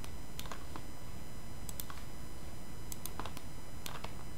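A handful of light, scattered clicks from a computer mouse and keyboard over a steady low background hum.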